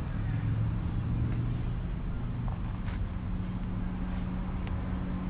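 Steady low drone of a motor or engine running in the background, with a couple of faint clicks in the middle.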